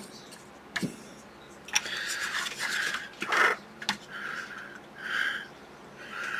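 Small plastic model-kit parts handled and worked at the bench: short rubbing and scraping sounds with a few sharp light clicks, about a second, two seconds and four seconds in.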